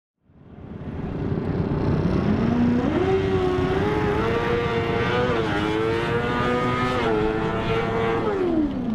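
Formula SAE race car engine under hard acceleration: it fades in, climbs in pitch over the first three seconds, holds at high revs with brief dips, and falls in pitch near the end.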